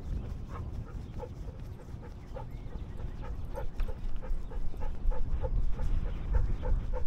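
Siberian husky panting right at the microphone, each breath carrying a short voiced note, about three a second, over a low rumble of wind and movement on the head-mounted camera.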